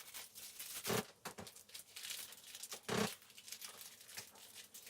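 Seed packet and seeds being handled: rustling and crinkling, with short louder bursts about one and three seconds in.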